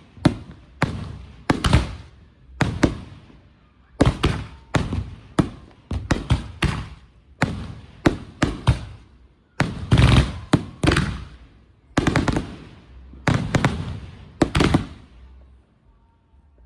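Consumer multi-shot firework cakes going off in a finale: a steady string of sharp bangs, often several in quick succession, each trailing off in a fading rumble, thinning out near the end.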